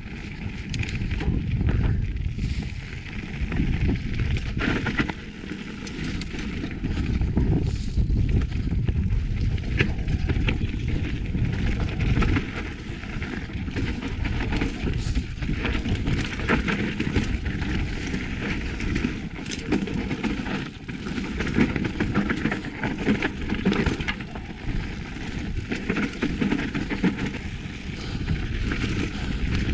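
Mountain bike riding fast down a dry dirt and stone singletrack: continuous wind rush on the rider's camera and tyre noise on the trail, with frequent knocks and rattles as the bike hits bumps and rocks.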